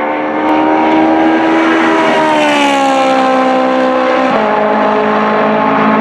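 Ferrari 458 Challenge race car's 4.5-litre V8 engine running at high revs on track, its pitch sliding down as it goes by. A little over four seconds in the note drops abruptly to a lower, steadier tone.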